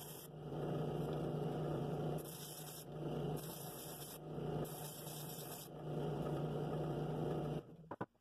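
Drill press spinning a sanding drum against the inside of a cherry wood bowl: a steady motor hum under a rushing sanding hiss that swells and fades as the wood is pressed on and eased off. The sound cuts off abruptly near the end.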